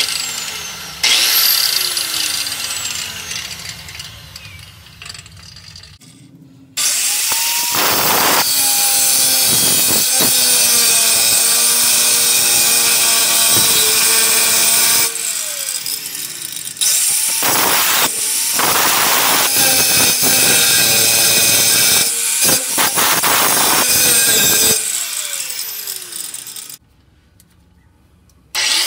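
Harbor Freight Bauer 4.5-inch, 8-amp angle grinder cutting into a truck's crossmember to notch it. The trigger is pulled several times. A short first burst is followed by two long cuts of about eight seconds each, and the motor winds down each time it is released. After a brief silence near the end it starts again.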